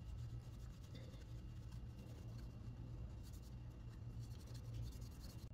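Cloth rubbing and wiping across the smoked plastic front cover of a Sony Dream Machine clock radio: a faint, fast run of scratchy strokes over a steady low hum.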